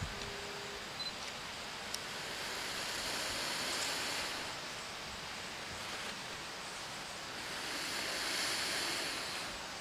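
A person blowing onto a smouldering chaga coal in a wood-shaving tinder bundle to bring it to flame: two long breaths of airy hiss, each lasting about two seconds, a few seconds apart.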